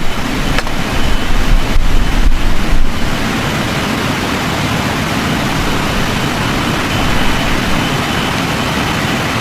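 Loud steady rushing wind noise, with gusts buffeting the microphone in rough low rumbles for the first three seconds before settling to an even roar.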